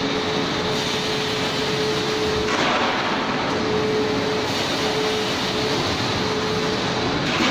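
Steady running noise of a stainless-steel food-processing production line: a broad hiss with a faint hum that comes and goes.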